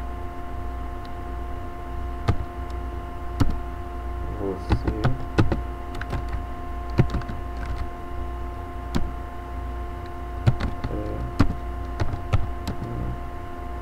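Computer keyboard keys clicking irregularly as words are typed, a few strokes a second with short pauses, over a steady electrical hum.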